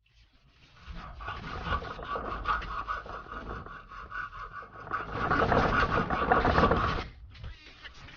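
Hand sawing on a scooter's fuel pump along pre-cut notches: rapid back-and-forth rasping saw strokes that grow louder about five seconds in and stop about a second before the end.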